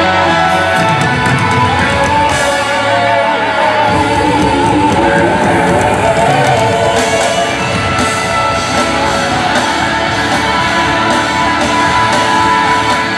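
Live amplified band music with an electric guitar playing lead, loud and steady.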